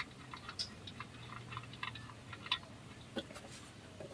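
Old engine oil draining from a Honda HR-V's sump into a catch pan, heard as scattered faint drips and ticks at irregular spacing over a low steady hum.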